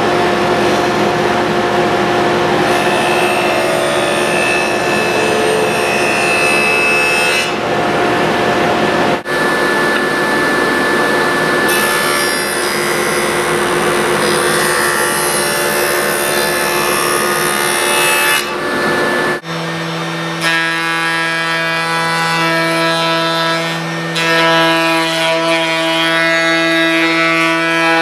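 Woodworking power saws running and cutting wood, in separate edited clips: the sound changes abruptly about nine and nineteen seconds in, and the last clip carries a steadier pitched hum.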